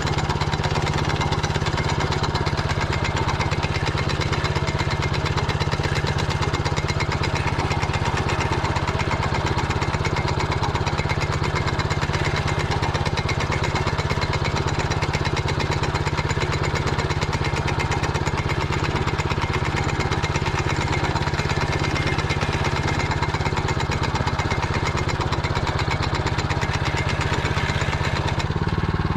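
Motor Sich walk-behind tractor's engine running steadily, with its sound changing slightly just before the end.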